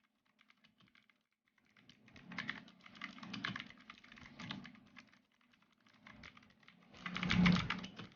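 Typing on a Gamen Titan Elite mechanical keyboard with Otemu blue switches: clicky, clacking keystrokes. A few scattered clicks come first, then fast runs of keystrokes, with the loudest run near the end.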